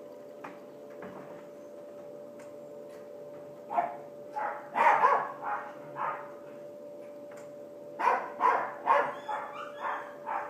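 A dog barking in two runs of short barks, the first about four seconds in and the second near the end, over a steady low hum.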